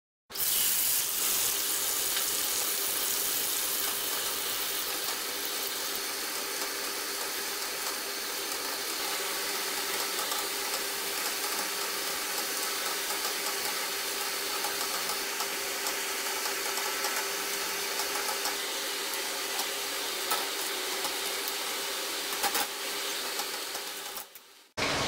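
Shelled peanuts deep-frying in a wok of hot oil: a steady, dense sizzle with a faint steady hum underneath and a couple of brief knocks near the end. The sizzle cuts off suddenly just before the end.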